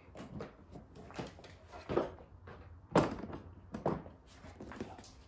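DeWalt TSTAK hard plastic toolboxes being set down and stacked onto the TSTAK trolley, making a series of thunks and knocks, the loudest about three seconds in.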